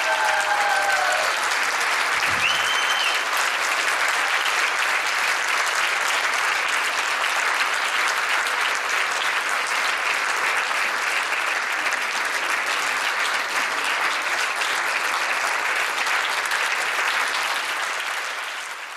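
Audience and performers applauding, a dense steady clapping that fades out near the end.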